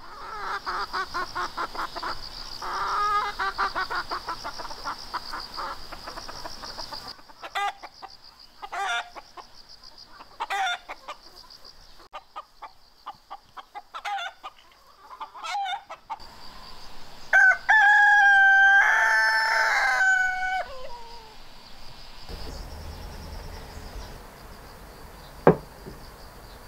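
Chickens clucking, with many short calls. Past the middle a rooster crows once, long and loud, falling away at the end. A steady high buzz sits behind.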